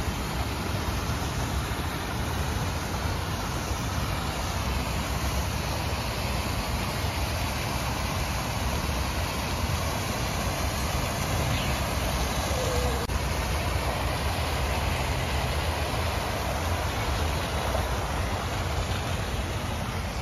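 Steady outdoor wash of noise: fountain jets of water splashing into a pool, blended with the low rumble of road traffic.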